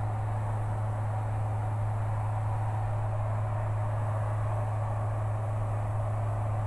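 Steady drone of a single-engine light aircraft's piston engine and propeller, heard inside the cabin in level cruise: one constant low hum under a rushing hiss, unchanging throughout.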